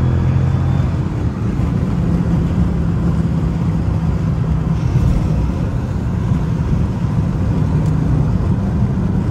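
Dodge Charger R/T's 5.7-litre Hemi V8 cruising at highway speed, heard inside the cabin: a steady low engine drone under road and tyre noise.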